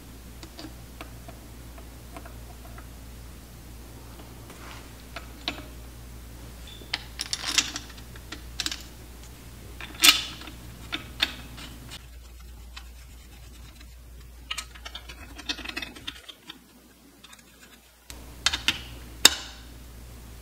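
Scattered clicks, taps and scrapes of small metal engine parts and hand tools being handled during engine assembly, over a steady low hum.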